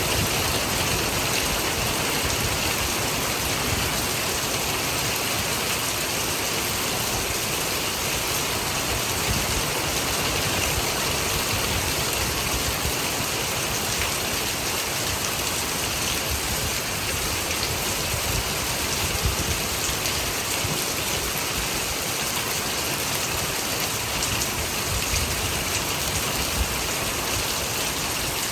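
Steady rain falling, an even, continuous hiss.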